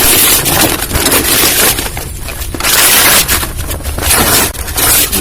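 Gift wrapping paper being torn and crumpled by hand: a loud crackling rustle that comes in several spells with short pauses between.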